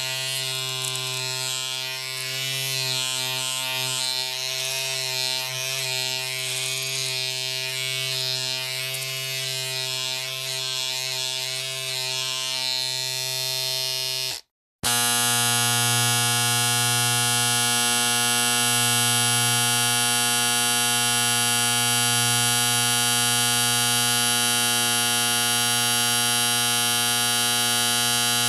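A small electric appliance motor buzzing steadily. One take ends abruptly about 14 seconds in, and after a brief silence a second, more even take of the same kind of buzz follows.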